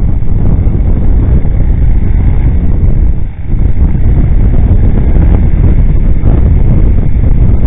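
Wind buffeting the microphone of a motorcycle-mounted camera at riding speed: a loud, steady low rumble that briefly drops about three seconds in, with the motorcycle's running engine buried beneath it.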